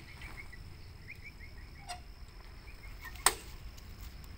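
Outdoor ambience of a steady high insect drone with a bird's short repeated chirps in the first second or so, over a low rumble. A sharp click about three seconds in is the loudest sound.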